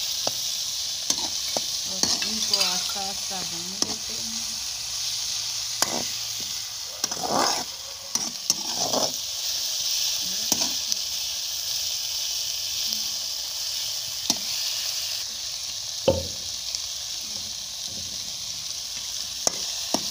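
Onion, tomato and green-chilli masala sizzling in oil in a metal karahi while a slotted metal spoon stirs it, scraping and clicking against the pan.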